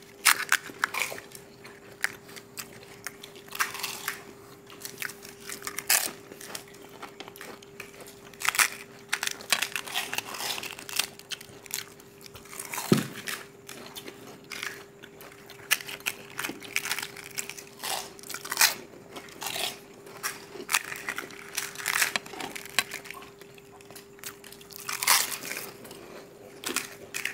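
Several people biting and chewing crisp, hollow pani puri (golgappa) shells: quick, irregular crunches and crackles throughout. A faint steady hum sits underneath.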